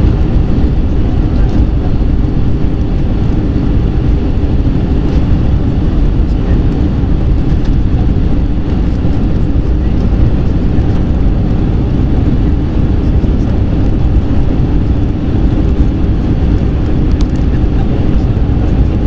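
Cabin noise inside an Airbus A320 on its approach to land: the jet engines and airflow make a loud, steady, even rumble that stays unchanged throughout.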